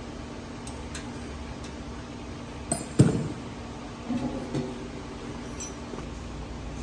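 Hard parts and tools being handled: a few light knocks and one loud metallic clink about three seconds in, with a short ring after it.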